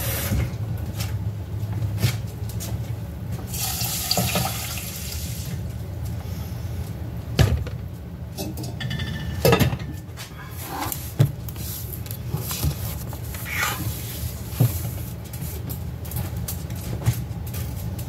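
Kitchen faucet running briefly as water is measured out to cover brown rice, followed by several sharp clinks and knocks of cookware. A steady low hum runs underneath.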